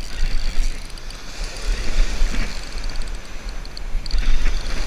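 Wind buffeting the microphone in an uneven low rumble, over the wash of small waves breaking on the beach.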